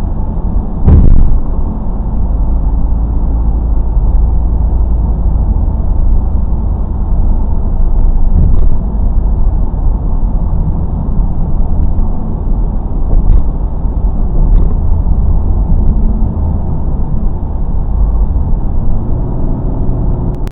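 Car driving, heard through a dash cam microphone: a steady low road and tyre rumble, with one loud thump about a second in and a few light clicks later.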